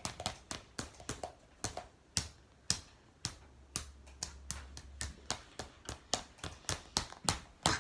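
A child's hands handling small toys on a tabletop: an irregular run of short, sharp clicks and taps, several a second.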